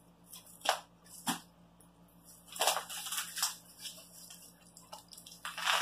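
Brown kraft-paper parcel wrapping crinkling and tearing as it is pulled open by hand: two short rips about a second in, a cluster of crinkles and rips around the middle, and another rip near the end.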